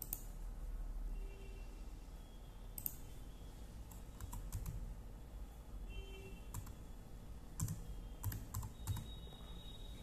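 Computer keyboard keys being pressed: about ten sharp, irregularly spaced keystrokes, bunched more closely near the end, over a low steady hum.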